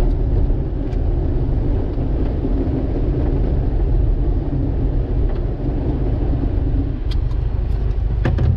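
Turbocharged Subaru Impreza GC8's flat-four and the road, heard from inside the cabin: a steady engine and road rumble, with a few light clicks near the end.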